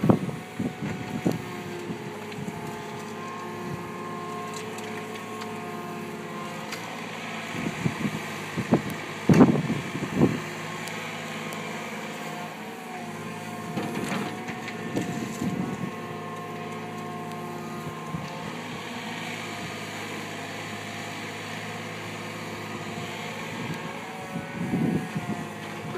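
Yanmar ViO27 mini excavator's diesel engine running steadily under digging load, with several short clunks and scrapes of the bucket working the soil, the loudest about nine and ten seconds in.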